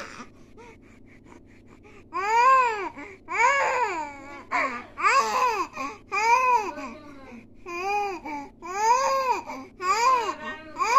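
A baby vocalizing in a run of high sounds, each rising and then falling in pitch, about one a second, beginning about two seconds in.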